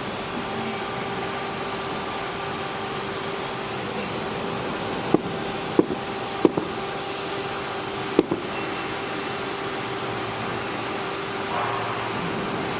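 Steady machine hum with a held tone, and four sharp metallic clicks between about five and eight seconds in, from parts or tools being handled while a hydraulic pump is taken apart.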